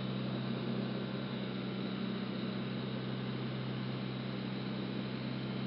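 Steady low hum of an idling vehicle engine under an even hiss, with no change in pitch or level.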